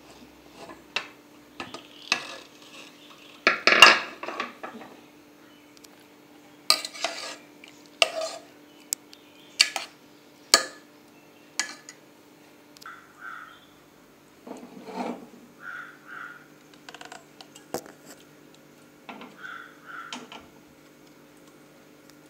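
A steel spoon clinking and scraping against a pressure cooker pot as soft cooked split green gram dal is stirred and scooped, in irregular metallic knocks, with a louder clatter about four seconds in.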